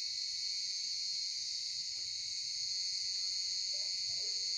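A dense chorus of crickets chirping, a steady high-pitched trill that runs on without a break ("cır cır cır").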